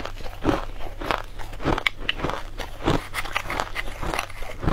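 Crunching and chewing of a mouthful of green-coloured crushed ice close to the microphone, in irregular crisp bites about twice a second. Near the end, a metal spoon digs into the ice in a glass container.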